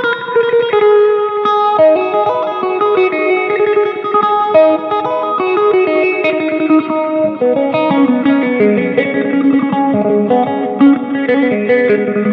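Electric guitar played through an M-VAVE Tank-G multi-effects pedal on a mor lam-style preset: a fast run of picked single-note lead lines. After about seven seconds the lines drop to a lower register.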